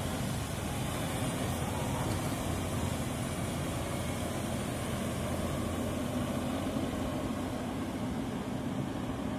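Crawler excavator's diesel engine running steadily as it digs and lifts a bucket of soil.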